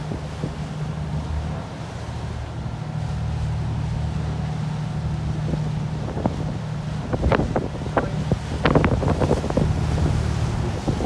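Passenger boat's engine droning steadily, with wind buffeting the microphone. A run of short, sharp knocks or clatters starts about seven seconds in and lasts about three seconds.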